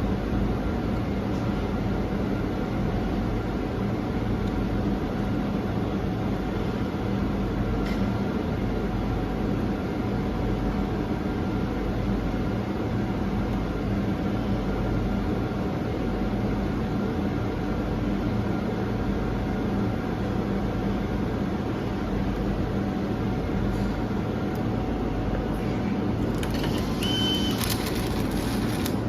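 MIG welding set running: a steady electrical hum with a continuous rough, crackling noise. Near the end the crackle gets brighter and a brief high whistle sounds.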